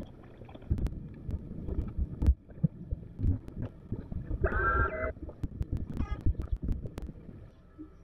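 Wind buffeting the microphone on a slowly moving boat, heard as irregular low thumps and gusts. About four and a half seconds in comes a single short, high-pitched cry that lasts under a second.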